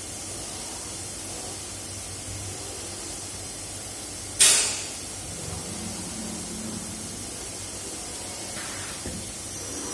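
Overhauled CNC woodworking machine standing with a steady low hum, broken about four and a half seconds in by one sharp, loud hiss of compressed air lasting about half a second, with a fainter hiss near the end.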